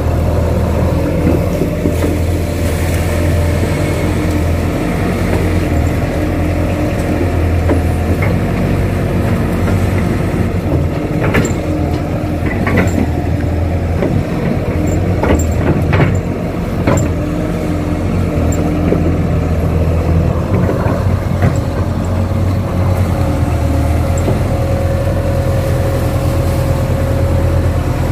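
KATO crawler excavator's diesel engine running steadily while the machine digs mud, with several sharp knocks from about halfway through.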